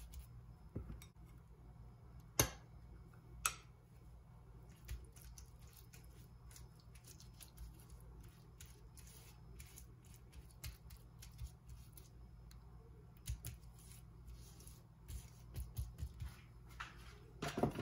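Faint wet dabbing and scraping of a silicone pastry brush spreading garlic butter paste over rolled paratha dough, with scattered small clicks and a couple of sharper taps.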